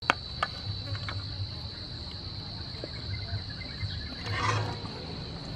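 Insects droning, one steady high-pitched tone. There are a couple of sharp clicks right at the start and a short rustle about four and a half seconds in.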